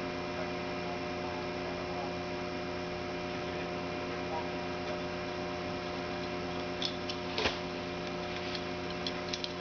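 An engine idling steadily at an unchanging pitch, with a few short clicks or knocks in the second half.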